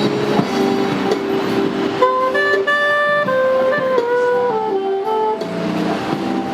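Instrumental music: a melody of held single notes that moves up and down from about two seconds in, over a lower plucked-string accompaniment.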